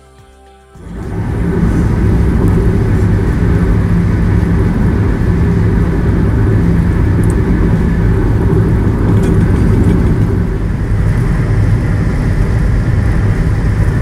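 Steady road and engine noise of a car cruising at highway speed on concrete pavement, heard from inside the cabin. It starts abruptly about a second in.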